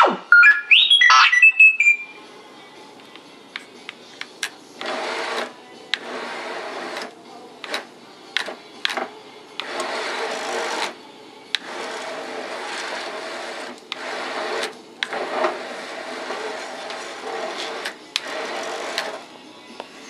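A few sweeping electronic whistles from the robot's sound system in the first two seconds. Then the dome drive motor turns the dome in repeated bursts of one to a few seconds, stopping and starting with short clicks in between.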